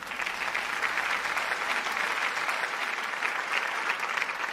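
Small group applauding, steady clapping of a few people in a hall.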